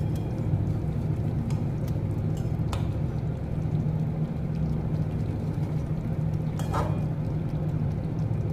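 A silicone spatula scraping and tapping lightly against a metal kadai as fried pieces are turned in gravy, a few short clicks apart, over a steady low hum.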